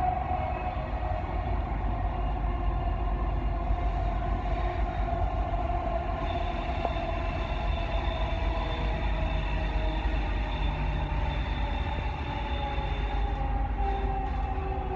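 Dubai Metro train running at speed, heard from inside the passenger car: a steady rumble with a running whine. A thin high whine joins about six seconds in.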